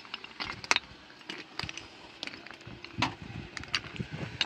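Scattered light clicks and clinks of a metal bowl and glass tea cups being handled and set down on a tray.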